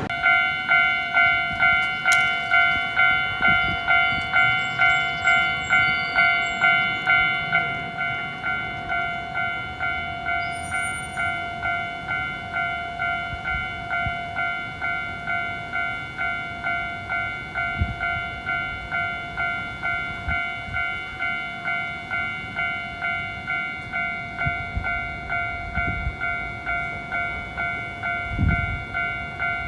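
Japanese railway level-crossing warning bell ringing steadily at about two strokes a second, starting at the very beginning and dropping somewhat in loudness about seven seconds in. A few low thumps sound in the second half.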